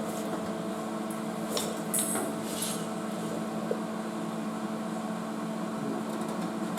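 A few light metallic knocks and clanks, three close together from about a second and a half to under three seconds in, as a car-body sheet-metal panel is worked into place. A steady low hum runs underneath.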